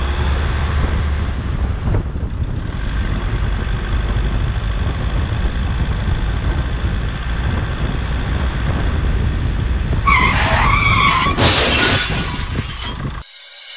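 Steady low rumble of a vehicle, then about ten seconds in a loud, wavering screech like tyres skidding, which cuts off suddenly shortly before the end.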